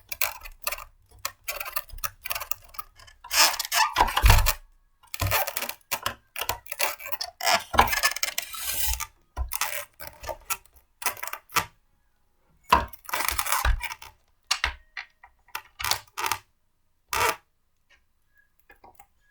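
Blender parts being handled and fitted together: irregular clicks, clacks and short rattles of small hard pieces, thinning out to a few isolated taps near the end.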